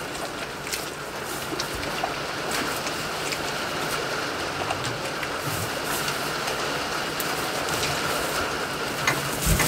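Rain pattering on a corrugated metal roof: a steady hiss dotted with sharp ticks. There is a louder knock near the end.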